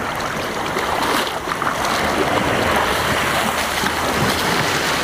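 Small surf waves washing up over sand close to the microphone: a steady hiss of foaming water.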